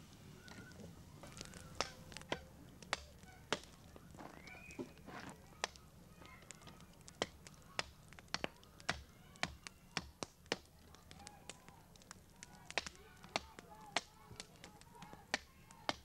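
Irregular sharp knocks and cracks, about one or two a second, as a bar breaks up lumps of freshly roasted bog iron ore. Geese honk in the background.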